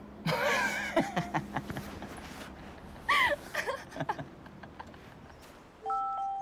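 A man and a woman laughing together in two bursts. Near the end a glockenspiel melody begins.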